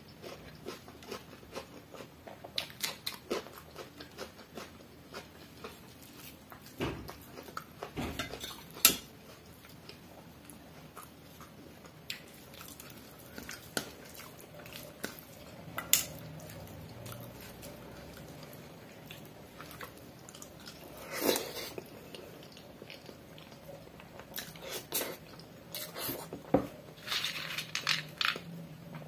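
Fingers mixing wet pani bhat (water-soaked rice) in a stainless steel plate, scraping and tapping the metal in scattered sharp clicks, with chewing between. Near the end, crisp fried chips are handled, and the clicks come thicker.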